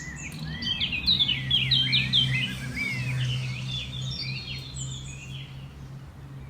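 Birds chirping, many short, quick chirps overlapping, over a steady low hum.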